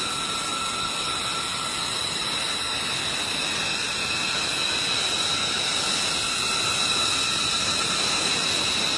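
Jet engine running steadily: an even rushing roar with several steady high-pitched whining tones over it.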